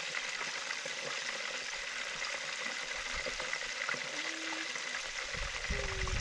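Tilapia fillets frying in a hot pan, a steady sizzle, with a few low bumps near the end.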